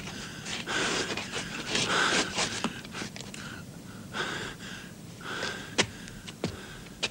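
A person panting heavily, a string of hard breaths about one a second, with a few sharp clicks or knocks near the end.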